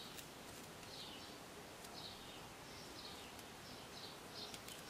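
Faint rasping of paper yarn drawn through a crochet hook as chain stitches are worked: soft scratches about one to two a second, with a couple of tiny ticks, over low room hiss.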